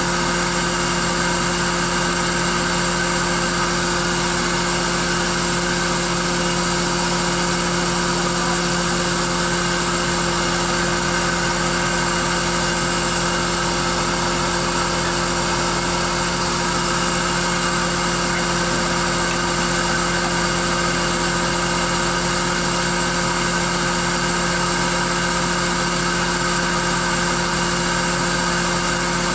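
An engine idling steadily aboard a moored fishing boat: a constant, unchanging hum with no revving.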